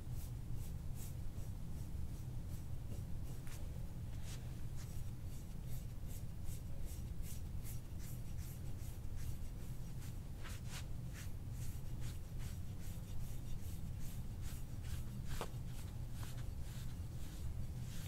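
Metal soft-tissue scraping tool drawn over the skin of the upper back in repeated short, quick strokes, a few a second, coming thickest in the middle stretch.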